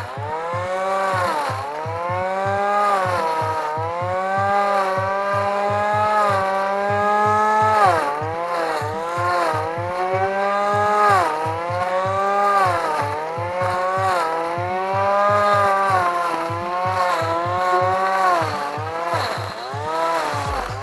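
Electric blender motor driving a homemade lawn mower's blade, running at high speed, its pitch dipping and climbing back every few seconds as the blade bites into grass and frees again. A steady low beat runs underneath.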